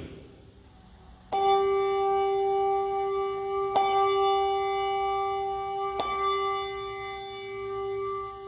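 A single church bell struck three times, about two and a half seconds apart, starting about a second in. Each strike rings on in a long, steady hum that carries into the next.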